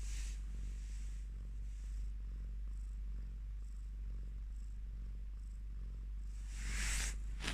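A pregnant Burmese cat purring steadily, a low continuous rumble, while in early labour with her waters likely broken. A short burst of noise comes near the end.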